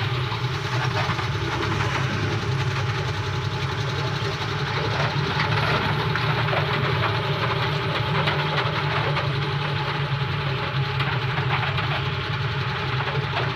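Vehicle engine running steadily under way, with a constant low drone and road and tyre noise, heard from inside the cab.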